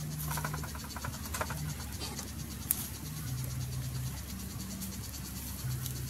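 A machete blade scraping the charred skin of a spit-roasted bird in a few short strokes, over a steady chirring of insects.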